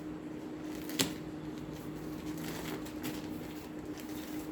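Light handling sounds: a sharp click about a second in, then a few soft rustles and taps, over a steady low hum.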